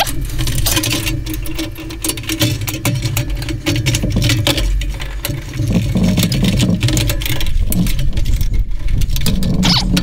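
Pliers clicking and scraping against the metal burner plate of a Coleman camp stove, over a steady low rumble.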